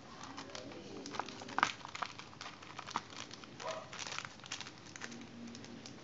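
Clear plastic wrapping crinkling and crackling as fingers peel it off a lighter, in an irregular run of sharp crackles, the loudest about a second and a half in.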